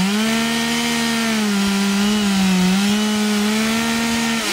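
Two-stroke chainsaw held at high revs, its pitch nearly steady with slight dips, then dropping back as the throttle is released at the very end.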